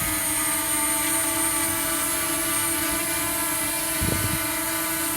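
DJI Mini 2 SE drone's propellers and motors hovering close by: a steady buzzing whine made of many held tones.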